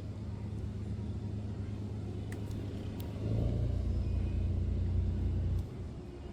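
Stray tabby cat purring close up as it is stroked, a steady low rumble that grows louder about three seconds in for a couple of seconds, then drops back.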